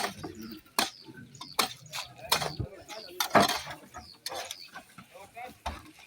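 Rope pulley squeaking and knocking as a bucket of soil is hauled up a dug shaft hand over hand, with a sharp knock about once a second and short high squeaks in between.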